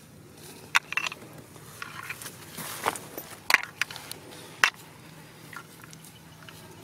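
Snail shells clicking and knocking against each other and against a clay pot as they are handled and dropped in: a handful of short, sharp clicks spread unevenly over several seconds.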